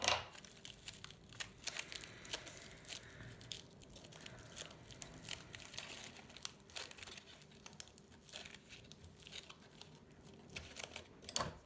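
Aluminium foil crinkling and crackling in irregular bursts as it is pressed and shaped by hand, with a louder crackle at the very start and another near the end.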